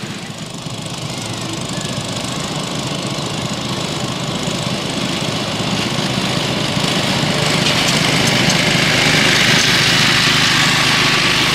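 Small internal-combustion engine of a 7 1/4 inch gauge miniature locomotive running steadily as it hauls a passenger train, getting louder as the train draws closer.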